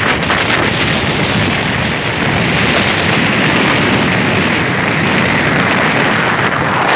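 Strong wind buffeting the microphone: a loud, steady rush of wind noise.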